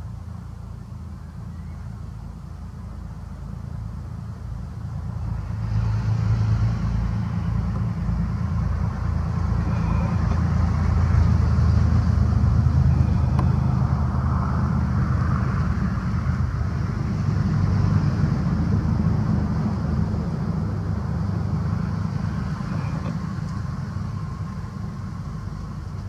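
Low engine rumble of a passing road vehicle. It swells from about five seconds in, is loudest midway and fades toward the end.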